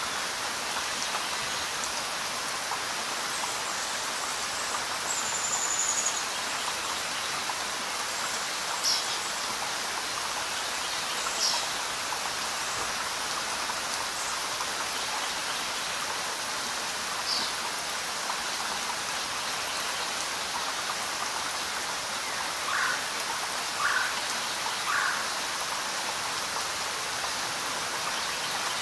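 Steady rainfall, an even hiss of falling drops. A few short high chirps sound through it, and three brief louder notes come in quick succession about three-quarters of the way through.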